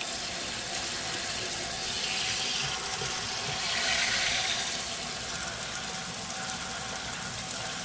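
Kitchen faucet spray head running a steady spray of water onto a steel axe head in the sink, rinsing off rust loosened by a vinegar soak. The spray gets a little louder around four seconds in.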